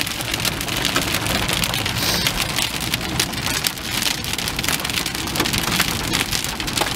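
Rain pelting a moving car's roof and windows: a dense patter of sharp drop hits over the steady low rumble of the car on the road.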